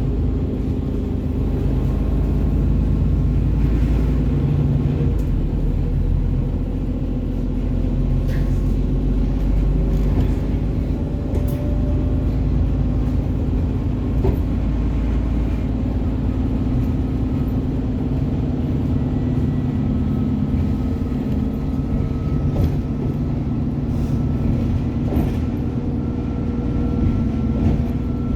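ADL Enviro400 double-decker bus's diesel engine running under load with a steady low thrash, with a thin high turbo whine coming in about halfway through and rising slightly near the end. Occasional brief rattles and knocks.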